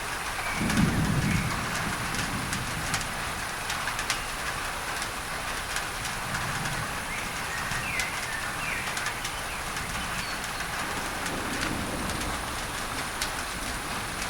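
Rain on a tin roof, with many small drop ticks over a steady layer of masking noise. A low rumble of thunder swells about a second in and a fainter one comes near the end. A few short bird calls sound now and then.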